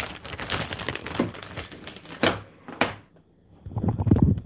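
Plastic rotisserie-chicken bag crinkling and rustling as it is handled, with a couple of sharp crackles. A little over three and a half seconds in, the crinkling stops and low, muffled bumps of handling take over.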